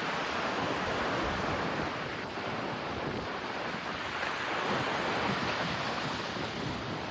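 Steady rushing of river water, an even, unbroken wash of noise.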